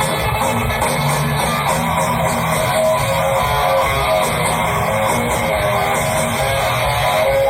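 Live rock band music: electric guitar playing over bass, continuous and loud.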